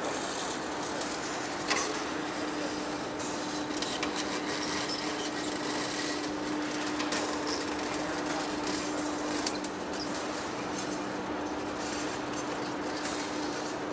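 Heavy-duty lathe running, with a steady hum held on one tone and a sharp click about two seconds in.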